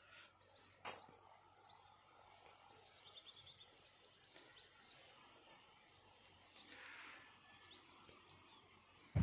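Faint outdoor ambience with small birds chirping: short, high chirps repeat again and again over a soft background hiss, with a single click about a second in.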